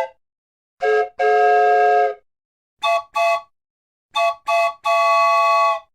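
Chime steam train whistle sounding several pitches at once, in separate blasts that cut off sharply: a short toot and a long blast, then two short toots, then two short toots and a long blast on a higher chord.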